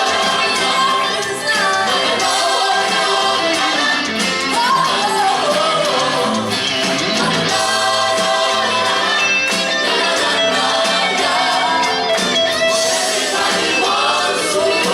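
A pop song playing: full band with singing.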